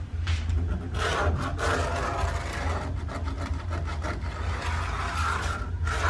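Pencil scratching along a steel straight edge as a layout line is drawn on a taped ebony fingerboard blank, a continuous rubbing stroke over a steady low hum.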